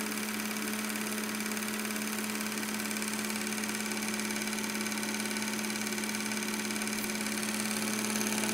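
GAF Anscovision 488 dual 8 film projector running: a steady motor hum with a rapid, even mechanical chatter on top, a little noisy as this older projector is, running smoothly on a freshly changed drive belt.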